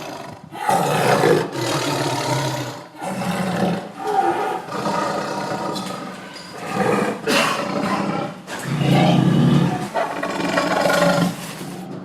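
Tiger roaring over and over, about seven roars in a row, each a second or two long with short breaks between.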